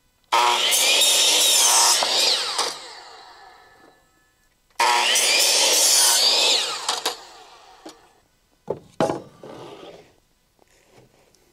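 Electric miter saw making two crosscuts through a wooden board, about four seconds apart. Each time the motor starts, the blade cuts through the wood and the motor winds down. A few wooden knocks follow near the end, as a cut board is set down on the trailer deck.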